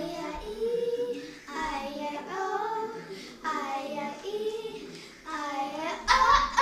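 Young girls singing a song in short phrases, their voices getting louder near the end.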